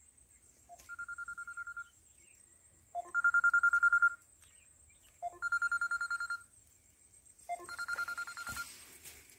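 Electronic telephone-style ringtone trilling, in four bursts of about a second each, roughly two seconds apart.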